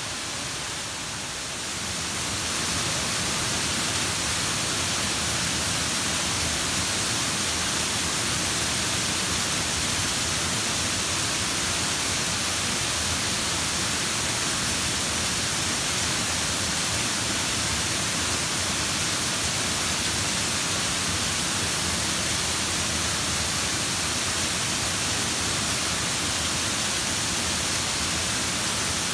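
Waterfall: a steady rush of falling water, an even hiss that gets louder about two seconds in and then holds.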